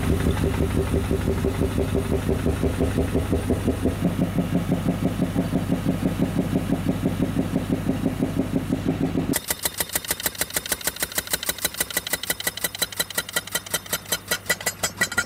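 Vermeer Hole Hammer pneumatic piercing tool running in reverse, a rapid even train of hammer blows as it backs out of its bore. The blows sound duller up to about nine seconds in, then sharper and brighter as the tool comes out into the pit. A steady low hum runs underneath.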